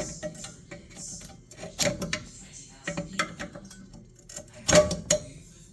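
Clicks and metal knocks of tools and parts being handled while working on a Trane furnace's seized draft inducer. The loudest knocks come about two seconds in and near the end.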